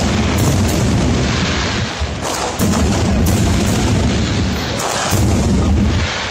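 A fireworks display in full barrage: overlapping low booms from bursting shells, with many sharp cracks layered on top and no let-up.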